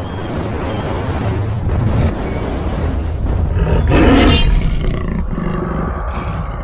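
Big-cat roar sound effect: a low rumbling growl that swells into a loud roar about four seconds in, then trails off.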